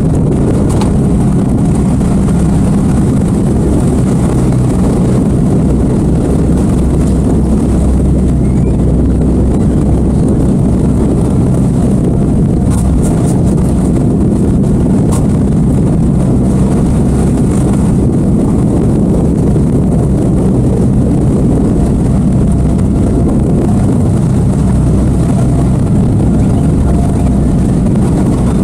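Boat under way at speed: twin outboard motors running steadily, mixed with wind buffeting the microphone and water rushing past the hull. A few light knocks about halfway through.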